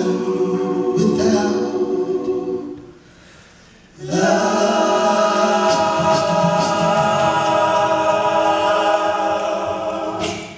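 Male a cappella group singing in close harmony through microphones. The voices break off briefly about three seconds in, then come back in together on one long chord held for about six seconds.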